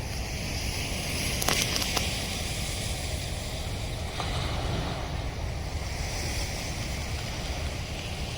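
Steady roar of heavy floodwater rushing through a dam, with a deep rumble underneath. A few brief clicks come about one and a half to two seconds in.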